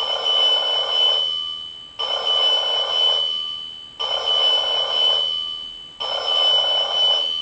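Seiko Doraemon talking alarm clock sounding its electronic bell alarm: a ring that starts sharply every two seconds and fades away, over a steady high tone.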